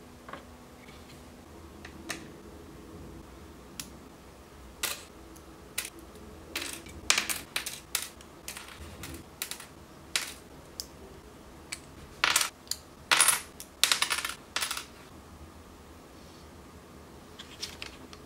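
Small hard plastic parts of a Kato N-scale platform kit clicking and clattering in the hands as they are snapped off a sprue and fitted together. Scattered single clicks, with quick runs of clicks about a third of the way in and again past the middle.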